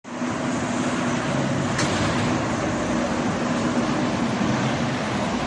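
Steady road traffic noise from a wide multi-lane road: the continuous rush of tyres and engines of passing cars and trucks, with a low engine hum underneath.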